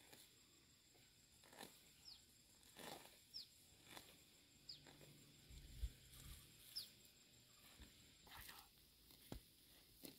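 Faint rustling and snapping of overgrown grass being pulled out by hand, with a bird giving four short chirps, each a quick falling note.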